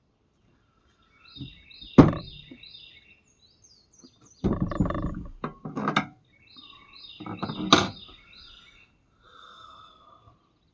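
A songbird singing two phrases of quick repeated high chirps, with scraping sounds and a sharp knock about two seconds in.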